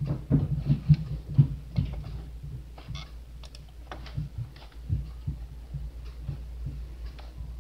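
Computer mouse being clicked and moved on a desk: irregular small clicks and soft low thumps, busiest in the first two seconds, over a steady low hum.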